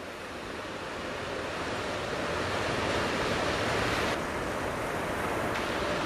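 Ocean surf washing and breaking at a river mouth: a dense, steady rushing of waves that grows louder over the first few seconds.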